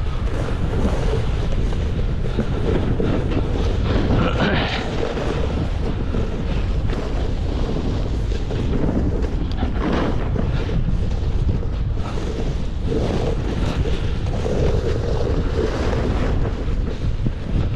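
Wind buffeting the microphone during a downhill run on a ski slope, over a steady hiss and scrape of edges sliding on crusty snow.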